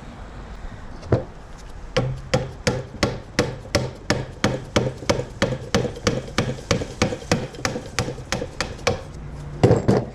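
Hammer striking metal in a steady run of blows, about three a second, then a few harder hits near the end, working a pry point to split the transmission housing apart.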